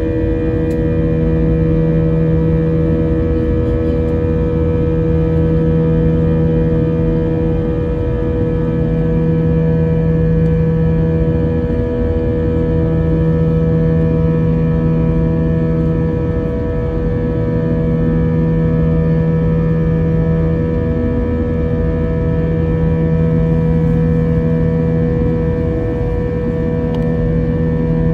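Airliner cabin noise during the climb after takeoff: jet engines and rushing air in a steady loud drone, with a constant tone and a low hum that swells and fades every few seconds.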